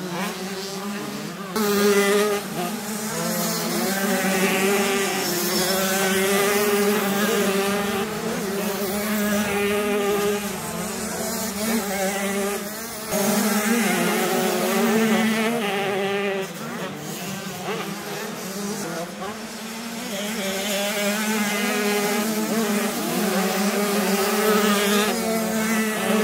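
85cc two-stroke motocross bikes revving hard under load, a high buzzing engine note that repeatedly rises and drops as riders accelerate and shift, with more than one bike overlapping. The sound jumps louder about a second and a half in and again about halfway through.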